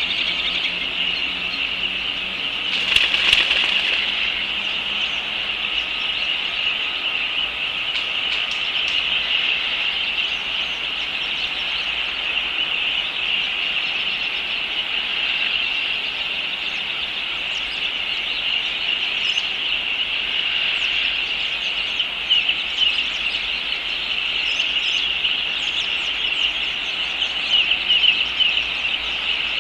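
A steady, high-pitched chorus of wildlife chirring and chirping without pause, with a short louder burst of noise about three seconds in.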